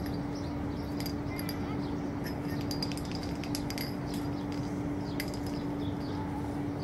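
Steady low hum with scattered short, high chirps and ticks from small birds.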